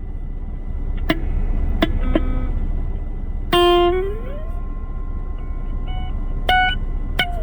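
Electric guitar played through a Blackstar ID:Core V3 10-watt practice amp: a handful of single notes picked slowly with pauses between them, one sliding up in pitch about four seconds in. A steady low amp hum sits under the notes.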